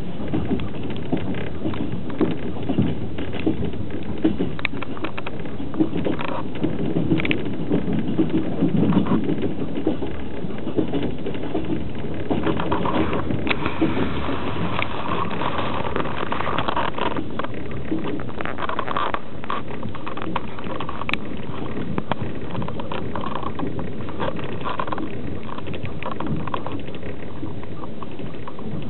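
Express passenger train running along the track, heard from inside an open-plan sleeper carriage: a steady rumble of wheels on rails with scattered rattles and knocks.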